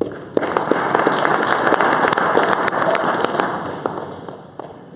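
Audience applauding: many hands clapping at once, starting about half a second in and dying away near the end.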